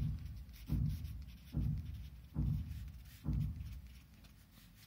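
Felt-tip marker writing on paper: scratchy pen strokes in about five short bursts, fading off near the end.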